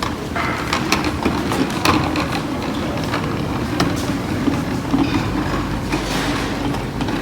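Casters of two furniture moving carts rolling across the floor under a heavy massage chair: a steady rumble with scattered clicks and knocks.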